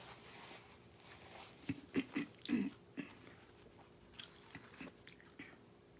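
A person biting into and chewing corn on the cob. The sound comes as faint, scattered short crunches and wet clicks, with a cluster about two seconds in and a few more near the end.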